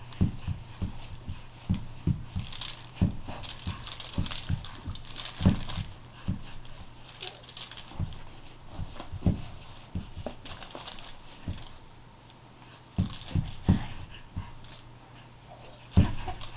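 A baby's legs and feet thumping repeatedly on a padded play mat as he kicks, in irregular knocks about one or two a second, with rustling from the mat and its hanging toys. The kicking eases off for a moment a little past the middle, then picks up again near the end.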